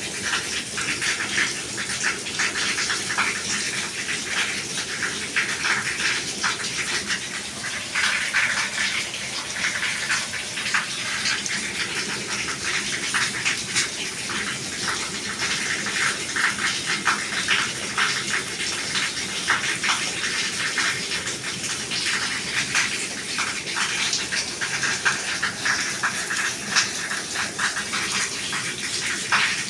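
Steady rain, with water splashing and running and many separate drop hits close by.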